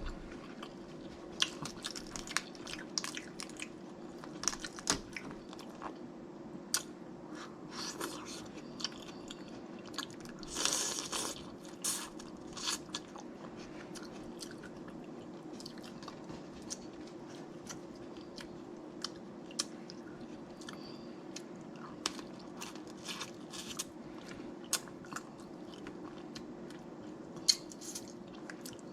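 Close-miked eating of snow crab legs in butter sauce: frequent short, sharp cracks and clicks of shell breaking, along with chewing. A faint steady hum runs underneath.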